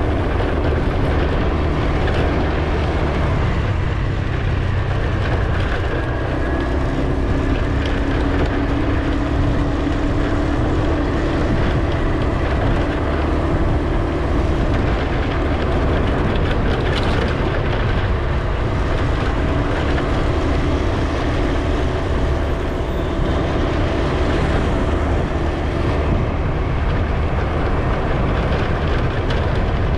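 Vehicle driving along a road: steady engine and road noise with a slight change in engine pitch now and then.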